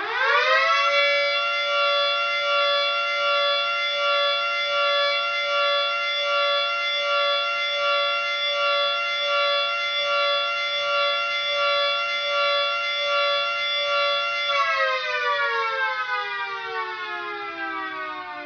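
A siren spins up quickly to a steady chord of two tones, holds it for about fourteen seconds, then winds down with the pitch falling near the end.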